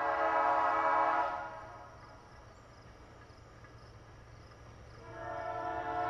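Wolo model 844 four-chime air horn on an excursion train sounding its multi-note chord: one blast cuts off about a second in, and after a pause of a few seconds the next blast begins near the end.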